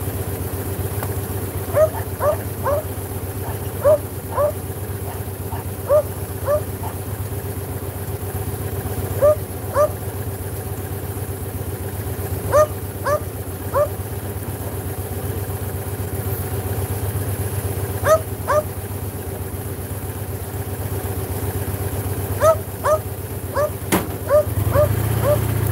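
A motorcycle engine idling steadily while a dog yips in short, high cries, two or three at a time, every couple of seconds. Near the end there is a sharp click and the engine gets louder.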